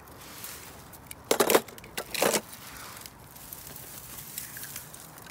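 Dry grass and fallen leaves rustling as they are handled, with two short, louder rustles about a second and a half and two seconds in.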